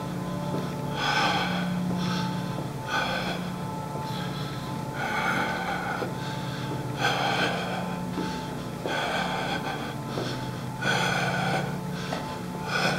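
Heavy, rapid breathing, about one loud breath a second, over a steady low hum.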